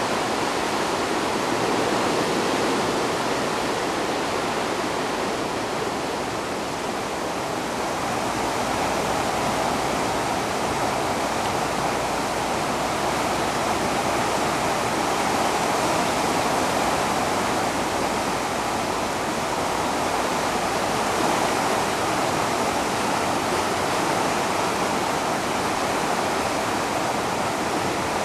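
Fast, swollen floodwater of a river in flood rushing past the bank and through trees, a steady loud rush of water with no breaks.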